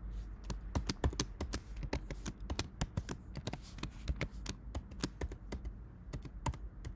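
Computer keyboard being typed on: irregular sharp key clicks, several a second, as a password is entered at a terminal prompt.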